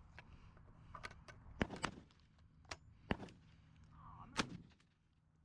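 Four sharp shotgun reports, the first two close together and the others a second or more apart, each with a short echo. They are not loud enough to be the hunters' own guns, so they come from other shooters in the dove field.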